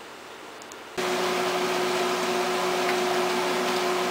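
Quiet room tone, then about a second in a kitchen appliance fan starts up: a steady whir with a constant low hum.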